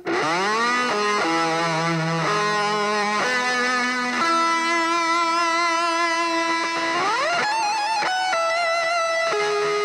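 Instrumental music: a lead electric guitar playing a slow melody of long held notes with vibrato, sliding up into the first note and into another about seven seconds in.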